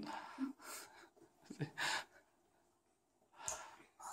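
A few short breathy gasps and breaths from children, separated by gaps of silence.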